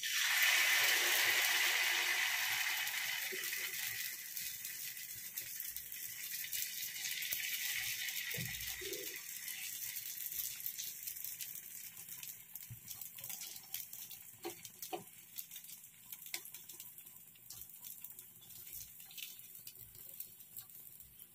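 Semolina (suji) batter with potato and onion sizzling as it is poured onto a hot tawa, loudest at first and dying down gradually as it cooks and is spread out.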